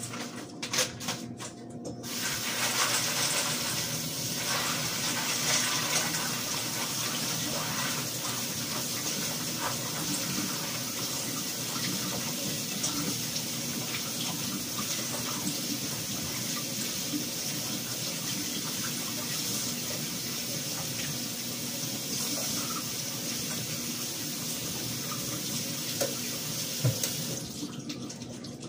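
Kitchen faucet running steadily into the sink as frozen cooked shrimp are rinsed under it to thaw; the water comes on about two seconds in and shuts off near the end, with a few small clicks before it starts.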